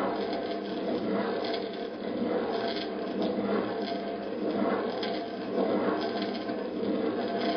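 Pen tip scratching on paper, drawn round and round in tight circles, swelling about once a second with each circuit.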